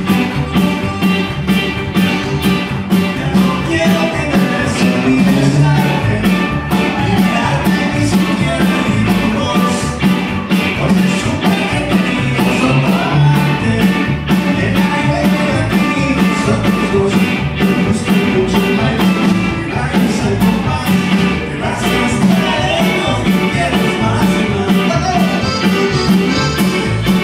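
Live Tex-Mex conjunto band playing an up-tempo song: accordion, electric guitars, bass and drums keeping a steady quick beat, with a man singing into a hand microphone at times.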